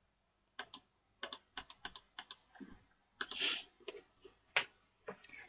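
Keys tapped on a computer keyboard: a run of about ten quick separate clicks, a brief rustling noise a little after three seconds in, then a few more clicks.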